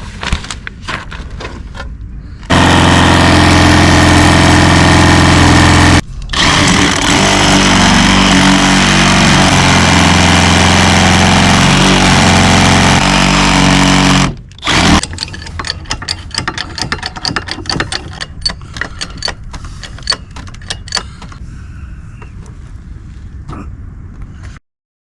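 A loud motorized power tool runs twice, about three and a half seconds and then about eight seconds, its pitch shifting during the second run. Scattered knocks and clatter of work come before and after.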